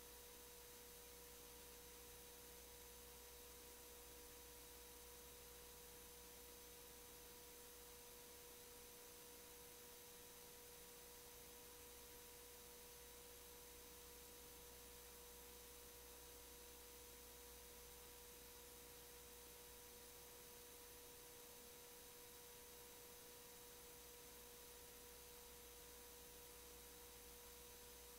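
Near silence on a paused meeting feed: a faint, steady electronic tone with a low hum and hiss, unchanging throughout.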